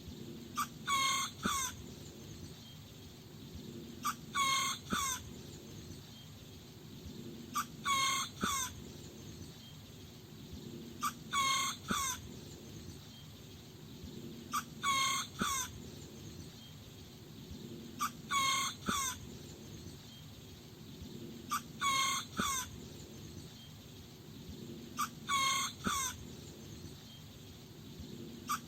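Small rooster crowing: a short, high crow of about a second, repeated evenly about every three and a half seconds, eight times.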